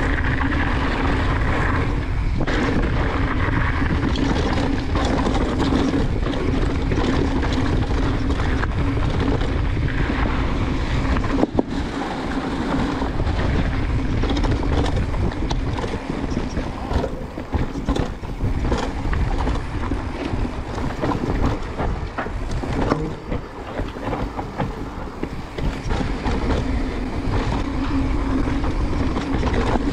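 A Transition Sentinel mountain bike being ridden along a dirt trail: wind rushing over the microphone, tyres rolling and the bike rattling with scattered knocks. A sharp knock comes about eleven seconds in, after which the wind rumble drops and the rattling and knocking over the ground come through more unevenly.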